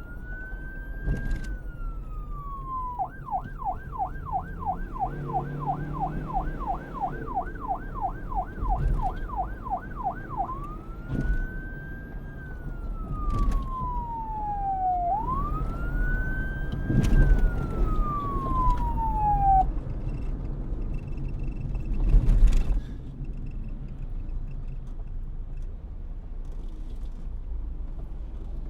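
Police car siren cycling between a slow rising-and-falling wail and a fast yelp of about three sweeps a second, then back to the wail, over a low rumble. The siren stops about two-thirds of the way through, leaving the rumble and a loud short noise a couple of seconds later.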